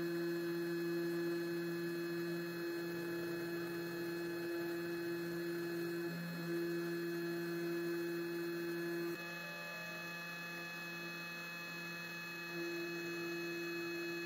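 Genmitsu Cubiko desktop CNC's 75 W spindle running with a steady hum while a V-bit engraves plywood. The hum weakens slightly about two-thirds of the way through and strengthens again near the end.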